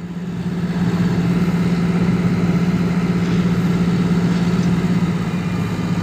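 Diesel engine of a tracked asphalt paver running at a steady, unchanging pitch as the machine creeps forward onto a trailer.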